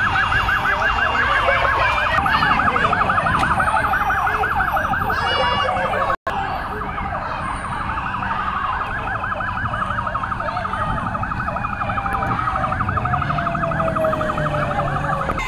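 Police vehicle siren sounding a fast warble that breaks off for an instant about six seconds in. A second tone slides slowly downward underneath in the second half.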